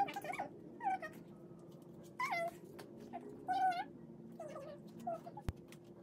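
Golden retriever whining: a string of short, wavering high-pitched whimpers, about six over a few seconds, with a faint steady hum underneath.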